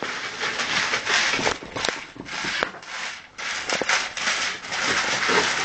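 A dog scuffling and rubbing its head on carpet, fretting at a piece of wood caught in its collar, with rustling and scattered clicks.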